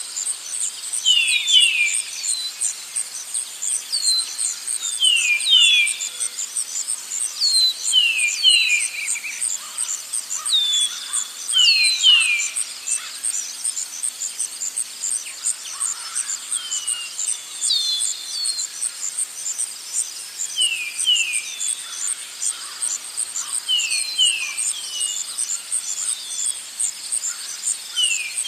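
Forest ambience: an insect trills steadily and high, in rapid even pulses. Over it, birds call in short falling notes, often two or three in quick succession, every few seconds.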